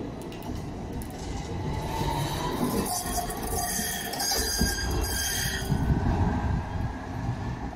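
Electric tram pulling away from a stop, its motor whine rising as it gathers speed over a low rumble of wheels on rails, with high wheel squeal in the middle. It fades as the tram moves off.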